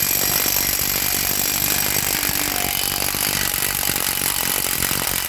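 Impact wrench hammering steadily on a car's 30 mm front CV axle nut to break it loose and spin it off.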